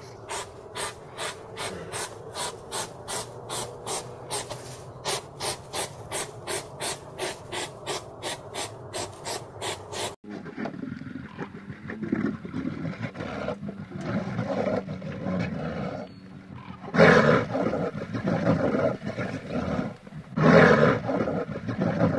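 A hedgehog snuffling through grass, with a steady ticking about two or three times a second. About ten seconds in, a brown bear's deep growls take over, with two loud growls near the end.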